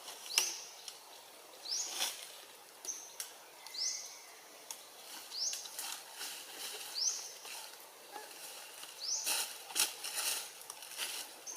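A short, high chirp that rises in pitch, repeated about every second and a half, with scattered soft clicks in between.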